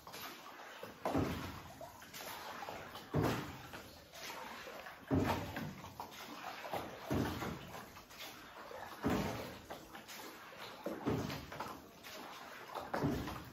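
Oars of a rowing boat pulling through the water in an even rhythm, one stroke about every two seconds, inside a cave.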